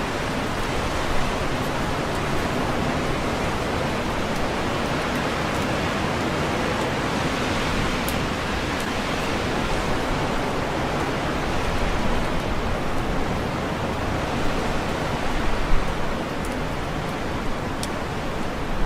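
Strong wind rushing steadily through leafy trees, the leaves rustling, the level swelling and easing slightly in gusts.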